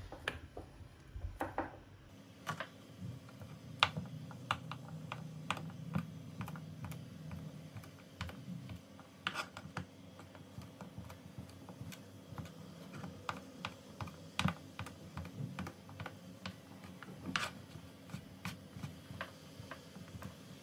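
Kitchen knife cutting soft melting cheese into cubes on a wooden cutting board: irregular light taps of the blade hitting the wood, several a second.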